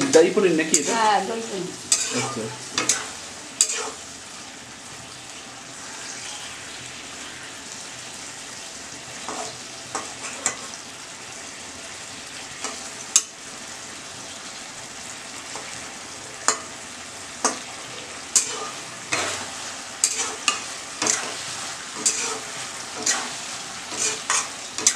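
Paneer and vegetables sizzling steadily in oil in a kadai, with a metal spatula scraping and knocking against the pan as it is stirred. The knocks come thick in the first few seconds, thin out in the middle, and come often again through the last third.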